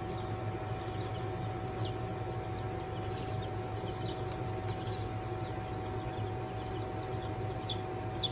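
Two-week-old chicks peeping faintly a few times over a steady hum that carries a thin, constant high tone.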